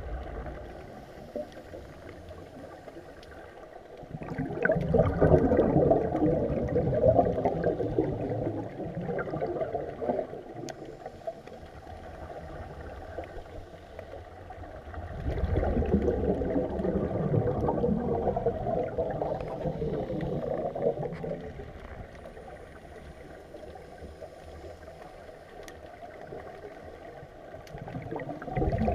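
Scuba divers' exhaled bubbles from their regulators rushing and gurgling underwater, in long swells about four seconds in, again about fifteen seconds in, and again near the end, with a quieter underwater hiss between them.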